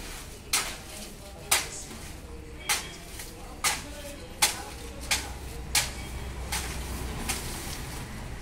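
A series of nine sharp knocks, roughly one a second, each ringing briefly, like tools striking metal on a building site.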